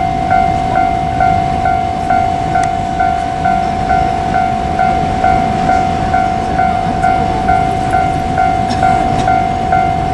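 Railway level crossing warning bell ringing, a steady repeating clang about twice a second, with a low rumble underneath.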